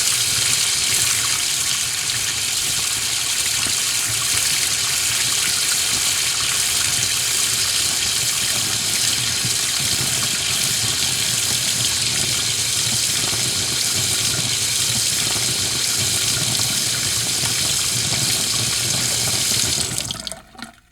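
Water running steadily from a kitchen tap into the sink, shutting off near the end.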